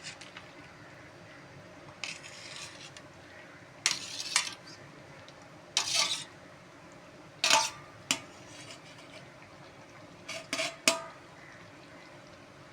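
Metal spoon stirring in a kadai, scraping and clinking against the pan in a series of separate short strokes.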